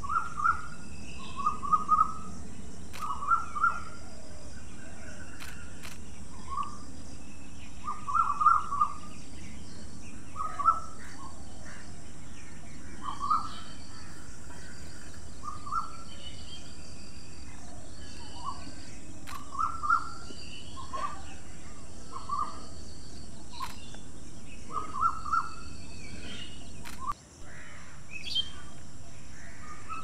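Birds calling in woodland: short clipped calls, often in quick pairs or threes, every second or two, over fainter higher chirping and a steady high hiss.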